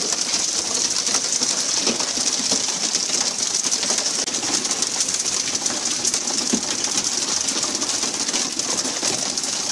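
Steady hiss of water spray and churning sea along a tuna fishing boat's hull, with a few faint knocks as fish are swung aboard and land on deck.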